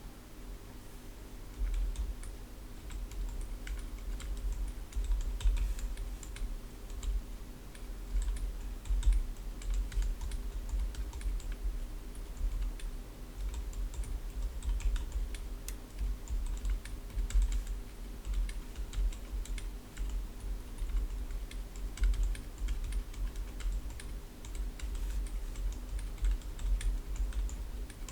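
Typing on a Corne split keyboard with lubed Boba Gum 55 gf switches and PBT DSA keycaps: a fast, uneven stream of keystrokes with a deep thud under each click, picking up about two seconds in. A faint steady hum lies underneath.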